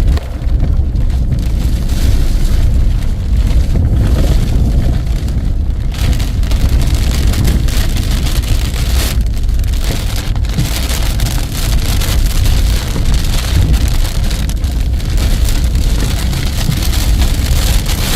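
Heavy rain pouring down in strong wind, with a heavy low rumble throughout. The rain hiss thickens from about six seconds in.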